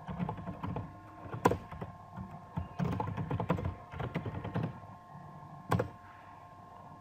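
Computer keyboard typing in quick runs of keystrokes, with two louder single clicks, one about a second and a half in and one near the end, over a faint steady hum.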